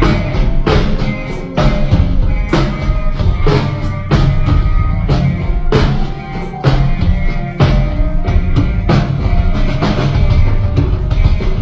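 Forró band playing at a sound check with the drum kit to the fore: regular kick and snare strikes over sustained pitched instruments.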